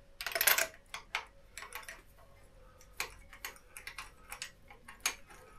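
Metal spark plug tool clicking and scraping as it is fitted and turned to unscrew loose spark plugs from the BMW S1000R engine's cylinder head: a brief rustle at the start, then a string of irregular light clicks.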